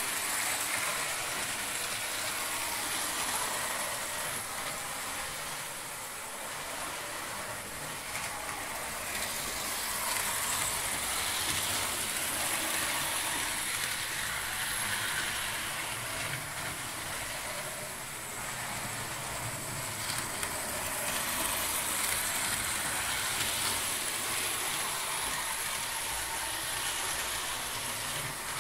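Model railway trains running on the layout: the small electric locomotive motors whir and the wheels run on the rails, in a steady noisy hum that swells and fades a few times as trains pass.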